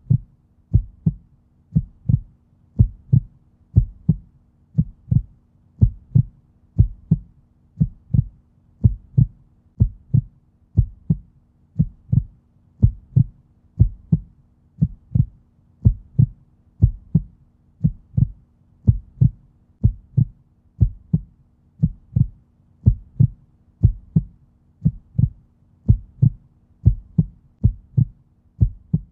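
Heartbeat sound effect: low double thumps, lub-dub, repeating steadily about once a second over a faint steady low hum.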